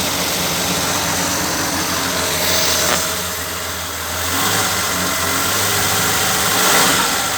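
Car engine running at idle, its sound swelling slightly a couple of times as the revs rise a little.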